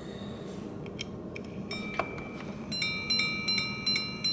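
Arnex five-minute repeater pocket watch striking the time. A few small clicks about a second in are followed by a single ringing hour strike about two seconds in. From just under three seconds in, a steady run of ding-dong strikes on two gongs counts the five-minute intervals.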